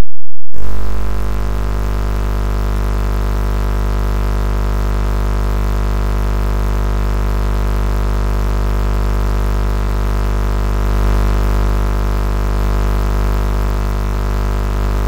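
Engine idling steadily: a deep, even drone that holds the same pitch throughout.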